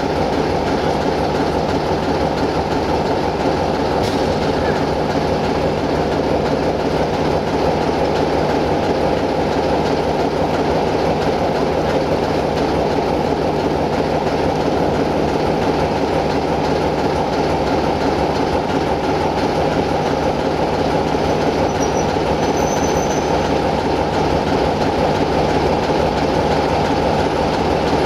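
Diesel engine of an LDH45 diesel-hydraulic shunting locomotive running steadily as it moves at low speed, a dense even rumble with a steady low hum that does not change throughout.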